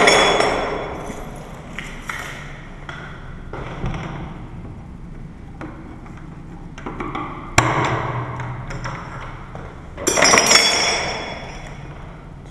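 Metal lock hardware clinking and clattering as a lever lock with a broken latch is taken apart. A loud clank at the start rings out for about a second, a sharp knock comes about seven and a half seconds in, and a burst of rattling clatter follows around ten seconds in.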